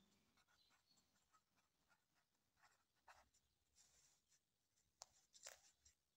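Very faint pen writing on a paper notepad: a few soft scratches and paper rustles, otherwise near silence.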